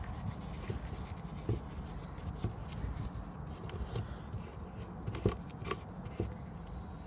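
Scattered light taps and clicks of hands at work cleaning thick oil sludge out of a motorcycle during an oil change, over a low rumble, with two sharper clicks about five seconds in.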